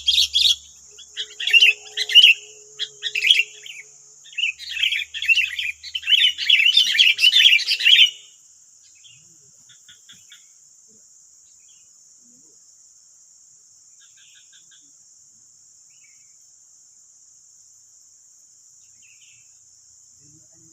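Sooty-headed bulbuls (kutilang) chirping loudly in quick, busy bursts. The chirping breaks off about eight seconds in, leaving only a few faint chirps over a steady high insect drone.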